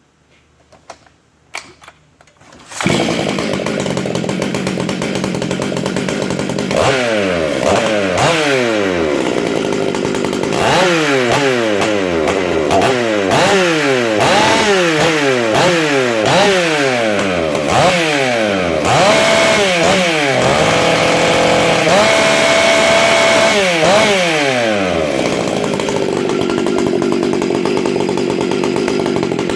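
Stihl MS 661 Magnum two-stroke chainsaw, fitted with a buckshot muffler, starting up about three seconds in after a few clicks. It runs briefly, is then revved in quick repeated blips, held at high revs for a few seconds, and settles back to idle near the end.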